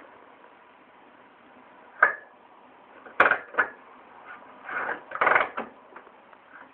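Irregular sharp mechanical knocks and clunks from a 1981 Maico 490 GS two-stroke single-cylinder engine that is not running, starting about two seconds in and bunched together in the middle. This is the strange knock that the owner places just after top dead centre.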